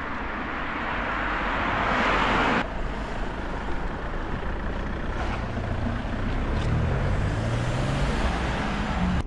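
Street traffic: a passing vehicle's noise swells, then cuts off abruptly, followed by a motor vehicle engine accelerating with slowly rising pitch.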